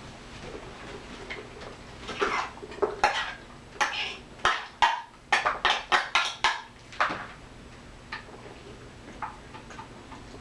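Clatter of dishes and eating utensils: a quick run of a dozen or so sharp clinks and knocks from about two to seven seconds in, with a few lighter taps around it.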